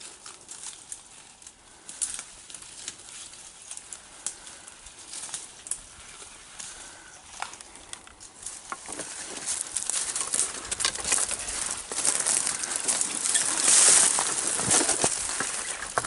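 Footsteps crunching through dry fallen leaves, with twigs crackling and brushing, getting louder from about nine seconds in.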